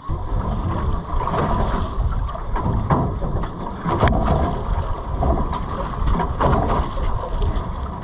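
Wind buffeting the microphone on an open boat at sea, with irregular splashes and knocks from the water alongside.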